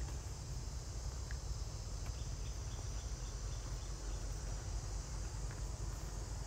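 A chorus of insects buzzing steadily at a high pitch, with a low steady rumble underneath and a few faint short chirps.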